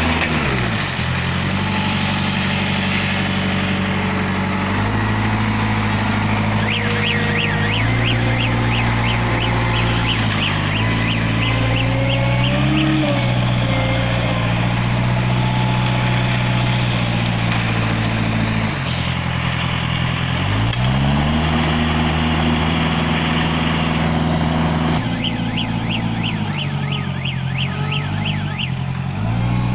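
Engine of a self-loading concrete mixer running hard, its pitch dipping and recovering several times as the load changes. Twice a run of rapid, evenly spaced high beeps sounds over it.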